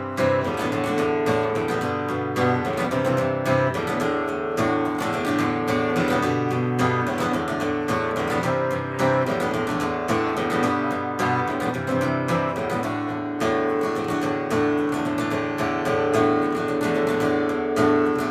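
Strummed acoustic guitar playing an instrumental break in a steady rhythm, without vocals.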